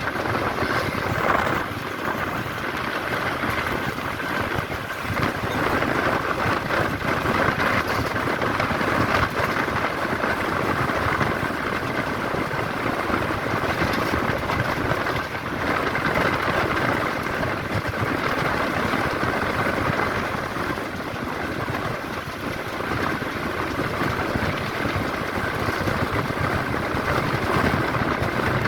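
Tamil Nadu government bus on the move: a steady mix of engine and road noise, without distinct events.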